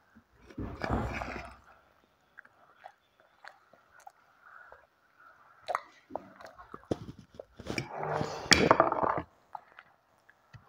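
A child chewing mouthfuls of noodles in short bouts, with sharp clicks of a fork against the plate; the chewing is densest and loudest about eight seconds in.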